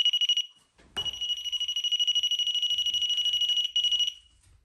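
REM pod proximity alarm going off: a high electronic beep pulsing very rapidly, in a short burst that stops about half a second in, then a longer run of about three seconds starting a second in. The alarm sounds when something disturbs the field around its antenna.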